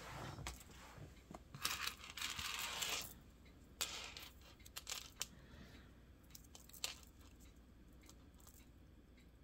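Packaging crinkling and tearing for about three seconds, then a few light clicks as a bead necklace and its clasp are handled.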